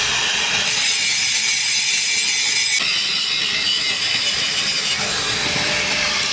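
Steady, harsh, high-pitched noise of a workshop tool working metal, changing abruptly about three seconds in.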